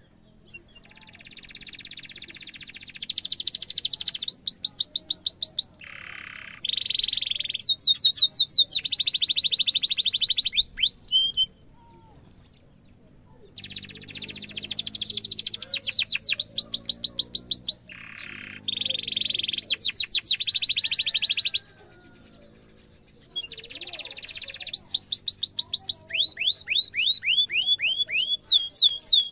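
Domestic canary singing in three long phrases, each a run of rapid rolling trills and quick repeated downward-sweeping notes, with short pauses between the phrases.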